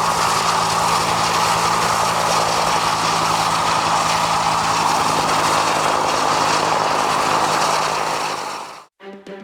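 Agusta Bell 205 (UH-1 Huey) helicopter running at a steady loud level, its single turboshaft whining over a fast chop of the rotor blades. The sound fades out quickly near the end, and electronic music starts.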